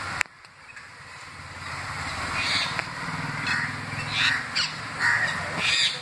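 Crows cawing: a handful of separate harsh caws over the second half, after a single knock right at the start.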